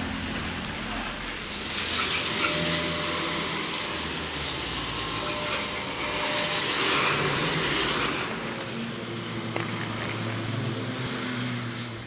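Hiss of traffic on a wet, slushy street, swelling twice as vehicles pass and then easing off.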